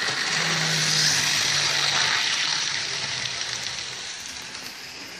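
A model train's electric motor whirring as the train runs along the track, a low hum under a rushing hiss of wheels on rails. It grows louder over the first two seconds, then fades.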